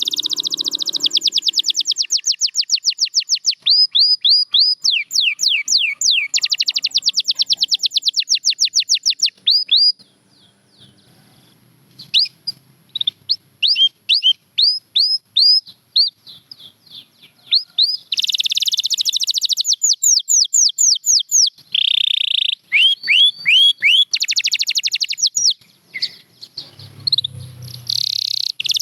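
Domestic canary singing: fast rolling trills alternating with runs of repeated falling whistled notes. The song breaks off for about two seconds around ten seconds in, then resumes.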